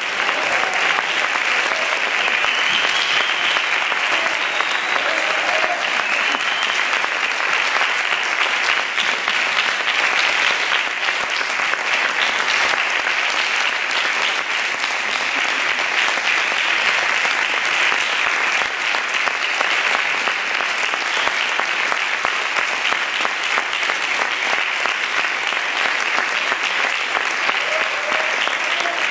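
Concert audience applauding, a dense steady clapping that carries on without a break.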